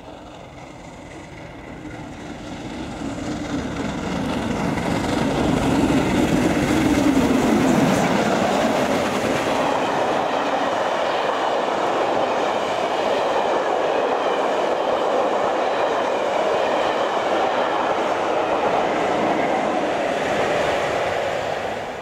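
LMS Royal Scot class steam locomotive 46100 approaching at speed and passing close by, growing loud and then dropping in pitch as it goes past about seven seconds in. The coaches then go by with a steady noise of wheels on rail.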